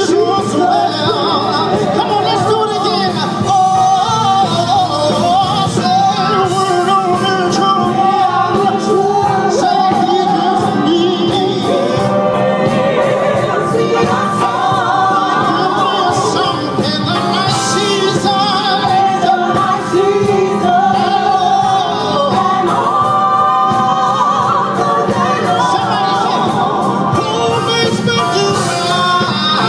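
A gospel song sung live by a solo singer over instrumental accompaniment with a steady beat.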